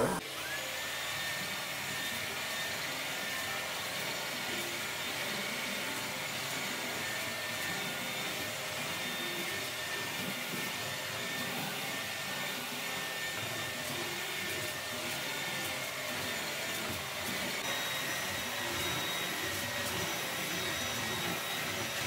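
Schenley cordless wet-dry vacuum mop running steadily while mopping a hardwood floor: an even rush of air and brush roll, with a steady high whine from the motor.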